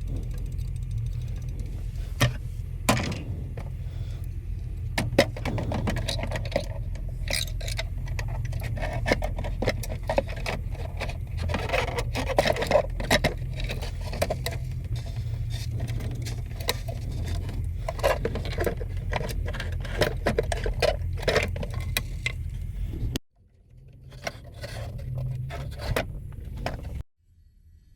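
Irregular clicks, knocks and scrapes of a chime clock's metal and wooden parts being handled, over a steady low rumble. The sound cuts off abruptly twice near the end.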